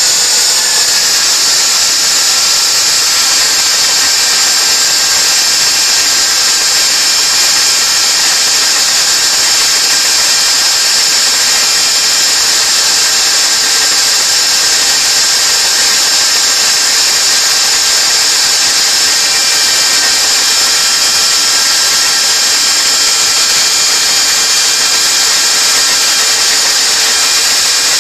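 Electric power tool motor running steadily and loudly, with a strong high-pitched hiss and no change in speed.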